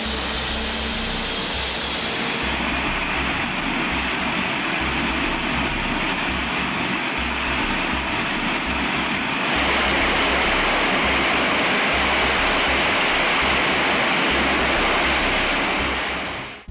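Allison T56 turboprop engine running on a ground test stand: a steady roar of turbine and propeller with a high whine through the first half. It grows louder and harsher about nine and a half seconds in, then fades out at the very end.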